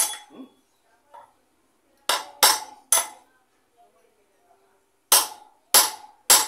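Hammer blows on metal driving a motorcycle rear wheel bearing into its hub, each strike ringing briefly. Seven blows in three groups: one, then three, then three, tapping the bearing fully home in its seat.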